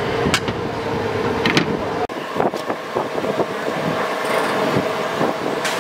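Steady background rumble and hum at a noodle cart, broken by a few light clinks and taps of the wire noodle strainer against bowls and the pot.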